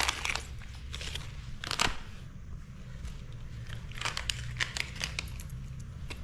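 Thin plastic carry bag crinkling and rustling as a hand rummages inside it, in irregular bursts with louder rustles about two seconds in and again around four to five seconds in, over a faint low steady hum.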